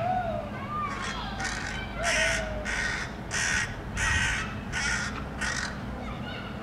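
Hooded crow giving a run of about eight harsh caws in quick succession, its loud protest at a cat.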